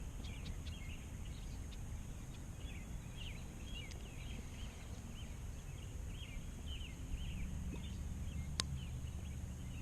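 Small birds chirping in quick, repeated short calls over a steady low rumble, with a single sharp click near the end.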